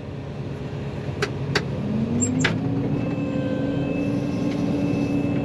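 John Deere 9500 combine engine running, rising in pitch about two seconds in and then holding at a steady higher speed. A few sharp clicks come before the rise.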